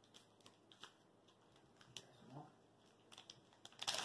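Foil-wrapped chocolate wafer bars being handled and unwrapped: faint scattered crinkles and clicks, then a quick run of louder crinkling and crackling near the end as a foil wrapper is peeled open.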